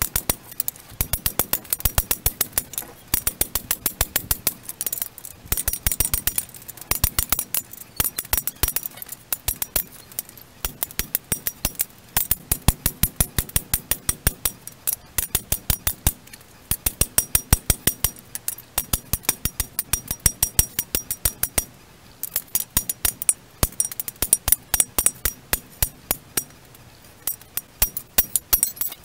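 Hammer blows on a heated steel lawnmower blade lying on an anvil, beating it flat. The blows come quickly in runs lasting several seconds, with short pauses between, and each strike has a bright metallic ring.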